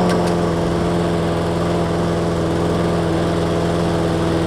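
Toro Recycler push mower's single-cylinder engine running at a steady, even speed without surging up and down, now that its fuel problem has been fixed.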